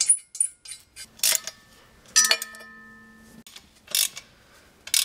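Metal clinks and taps of bolts and a ratchet socket against the exhaust manifold as it is bolted to the cylinder head, about six separate strikes. One clink about two seconds in rings on for about a second.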